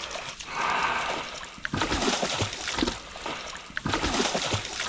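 Water splashing and sloshing: a rush of water in the first second or so, then a run of irregular short splashes.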